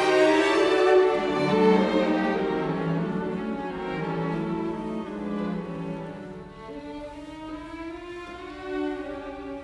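Background music of bowed strings, violin and cello, playing long held notes that grow gradually quieter.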